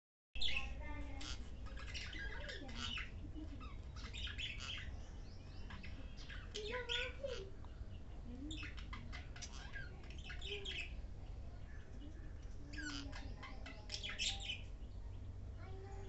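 Pet parrots, a budgerigar and an Indian ringneck parakeet, chirping and squawking in short bursts of quick high notes, about five bursts in all. A steady low hum runs underneath.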